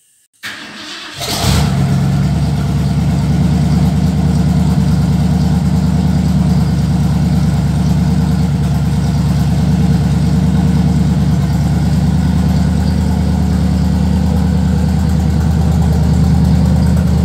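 Bombardier snow vehicle's engine coming in suddenly about a second in, then idling steadily.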